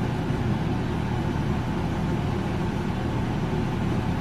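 Steady low hum that runs without a break.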